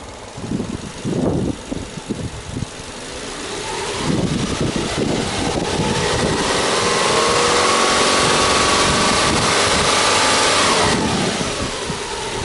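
Subaru Legacy Touring Wagon 2.5i's EJ25 2.5-litre flat-four boxer engine, revved with no load while parked. Engine speed climbs steadily over a few seconds, is held high for about four seconds, then drops back toward idle near the end.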